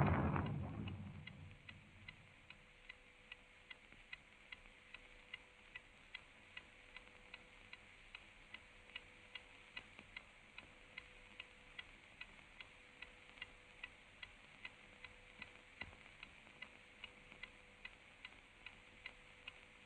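Clock ticking steadily and faintly, about two ticks a second, after a louder noise fades away in the first second or so.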